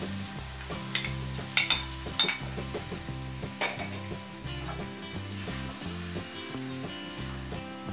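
Chunks of raw fish are tipped from a bowl into a wok of hot curry paste, which sizzles. A metal spatula stirs them, and a few sharp clinks and knocks against the wok come about a second to two seconds in and again a little later.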